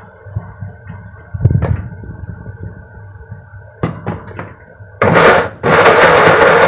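Small electric blender chopping shallots and garlic, switched on about five seconds in: a short burst, a brief pause, then running on. Before that, a few knocks from the jar being handled and seated.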